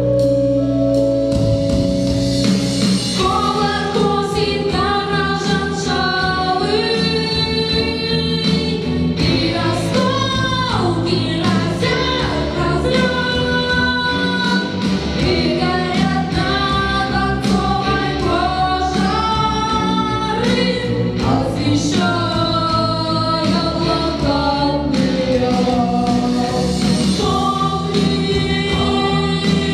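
Music: a choir singing wordless held, sliding lines over a steady instrumental accompaniment.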